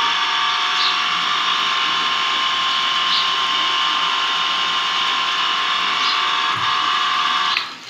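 Self-priming water pump's single-phase electric motor running on test with a steady whine, water pouring from its outlet pipe into the tank. It runs normally after its burnt lead wires were rejoined, and it cuts off near the end.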